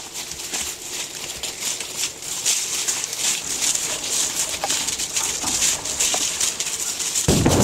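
A horse's hooves shuffling and crunching through dry fallen leaves at a walk, a continuous rustle with irregular footfalls. Near the end it cuts to a loud low rumble of wind on the microphone.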